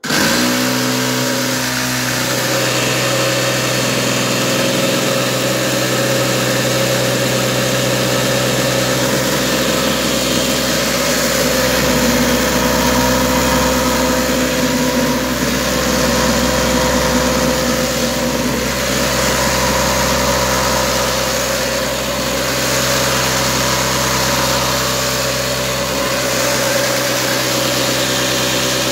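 Electric jitterbug sander bolted to a bucket sifter, switched on and running steadily, shaking coarse blasting media through the screen. It makes a loud, constant buzzing hum that starts abruptly.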